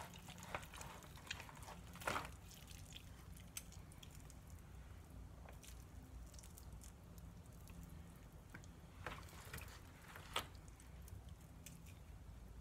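Faint wet squishing and tearing as bare hands pull cooked meat off a rotisserie chicken carcass, with a few sharper clicks, the loudest about ten seconds in. A low steady hum runs underneath.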